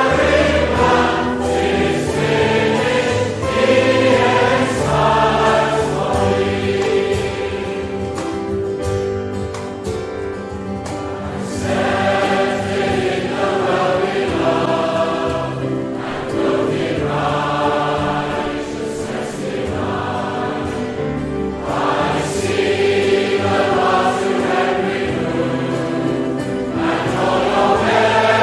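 A hymn sung by a group of voices in slow phrases over an accompaniment of long held bass notes. It goes softer for a few seconds about ten seconds in, at the change from one verse to the next.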